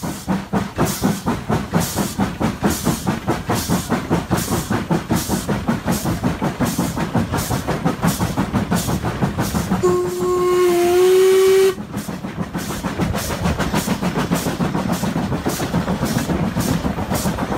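LNER A4 Pacific steam locomotive 'Union of South Africa' running at speed, its exhaust beating rapidly and evenly. About ten seconds in, its chime whistle sounds for nearly two seconds and cuts off sharply.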